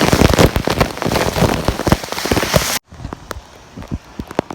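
Heavy sudden rain, a dense hiss crowded with close drop hits. Near the end of the third second it cuts abruptly to much lighter rain with scattered single drops.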